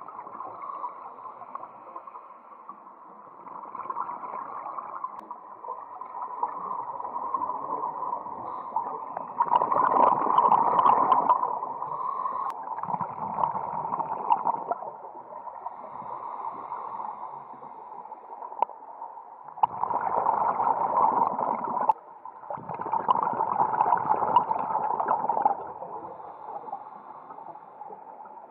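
Scuba regulator breathing heard underwater: bursts of exhaled bubbles gurgling and rushing every few seconds, with quieter stretches of muffled water noise between breaths.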